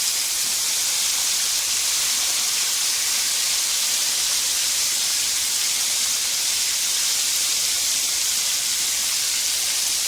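Chicken tenders frying in hot oil in a pan, a steady even sizzle.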